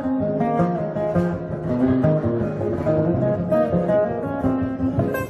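Two acoustic guitars playing together live: an instrumental passage of picked notes and chords, with no singing.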